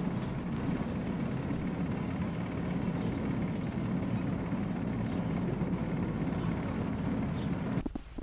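Wind buffeting the microphone outdoors, a steady low rumble. Near the end it cuts off abruptly to a much quieter low hum.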